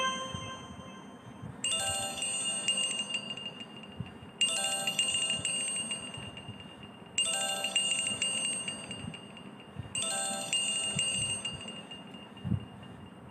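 Chime-like ringtone playing from a Nokia Asha 303 phone: a bright bell pattern strikes four times, about every three seconds, each time ringing out and fading before the next.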